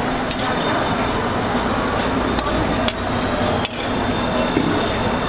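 Bread slices and an egg-and-vegetable patty frying in oil on a flat metal griddle, with a steady sizzle. A few sharp clicks of a metal spatula striking the griddle.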